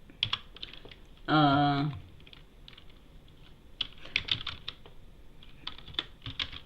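Computer keyboard typing in short bursts of key clicks as a command is entered. About a second in comes a brief steady hummed sound from a man's voice, the loudest sound here.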